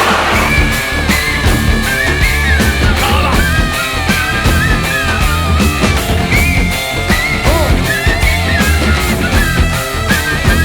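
Loud rock music with a heavy, steady beat and a bending lead melody line.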